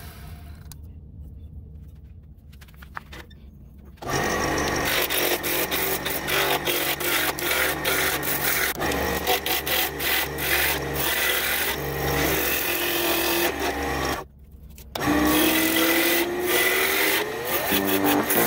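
A gouge cutting a spinning cherry blank on a wood lathe, scraping and chattering as shavings fly off. The cutting starts about four seconds in and breaks off briefly near the end.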